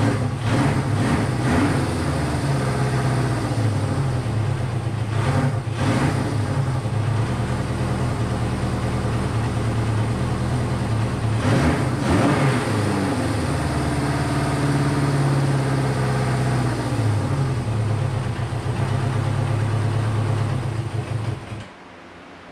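Honda CB500 air-cooled inline-four motorcycle engine idling, blipped with the throttle three times (about half a second in, around five and a half seconds, and around twelve seconds), then shut off just before the end. It is struggling to hold a proper idle, which the owner suspects is low compression from piston rings stuck after the bike sat.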